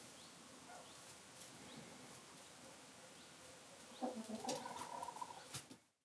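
Faint chickens settling to roost: a few short, high peeps from chicks and, about four seconds in, a soft clucking call from a hen.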